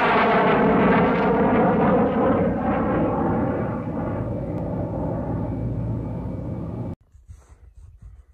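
Intro sound effect: a loud rushing rumble with a sweeping, falling tone, like a jet aircraft passing overhead. It cuts off suddenly about seven seconds in, leaving only faint outdoor noise.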